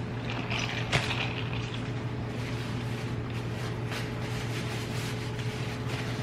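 Close-up eating sounds, chewing and handling of food, with a sharp click about a second in, over a steady low hum.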